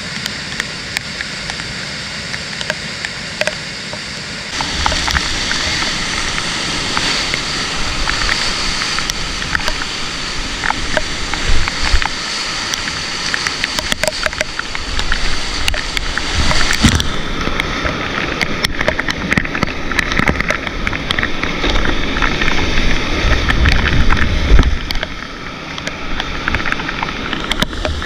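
Rushing white water of a steep mountain river heard from a canoe, a steady wash of noise with scattered short knocks and splashes. It grows louder about four seconds in and changes abruptly past the middle.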